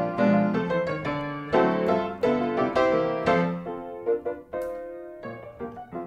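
Background piano music: a light tune of short notes.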